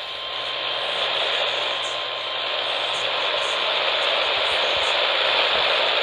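Static hiss from a Midland NOAA weather radio's speaker, tuned to AM 1140 with no station coming through. The hiss is steady and even.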